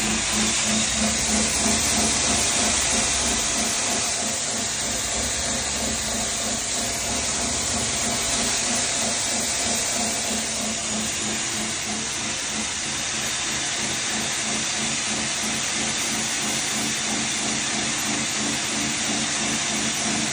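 10 hp maize feed grinder running steadily while grinding corn into poultry feed: an even rushing whirr of grain being milled over a steady low machine hum.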